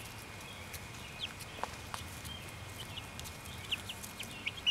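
Young chicks peeping: scattered short, high peeps, coming more often near the end.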